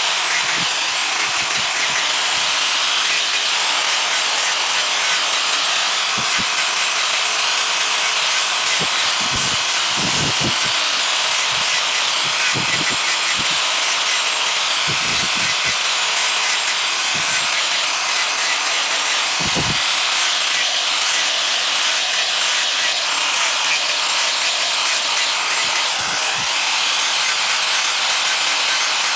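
Wood being worked with a tool: a steady rasping noise, with a few brief low knocks scattered through it.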